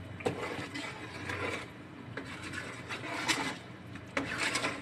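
Metal spoon stirring a soupy pork stew in a metal pot, scraping against the pot's side and bottom in a few irregular strokes as salt is stirred in.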